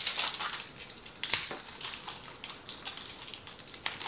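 Plastic packaging of AAA batteries crackling and crinkling as the batteries are worked out of it by hand, in irregular sharp clicks and crackles.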